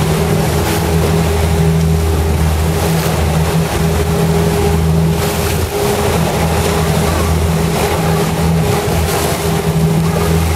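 Fishing boat's engine running steadily while trolling, a constant low drone, with the rush of its wake water.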